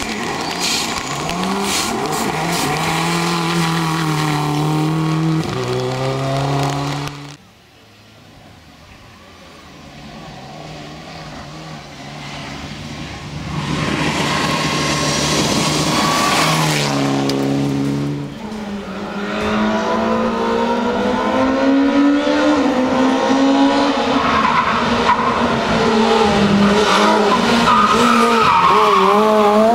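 Rally cars at stage speed one after another, engines revving hard and changing gear, with tyre and gravel noise. The first car's sound drops away sharply about seven seconds in, the next builds up to a loud pass about fourteen seconds in, and a third car revs loudly over the last ten seconds.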